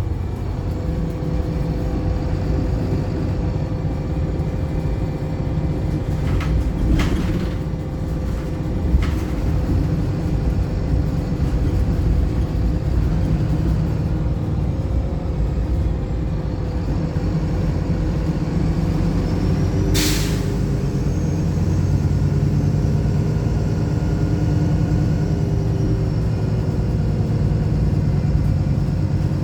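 Wright Pulsar single-decker bus heard on board, its diesel engine running with a steady drone. Short hisses of compressed air come about seven and nine seconds in, and a louder, sharper hiss about twenty seconds in: the air-brake system's 'sneeze' this bus is known for.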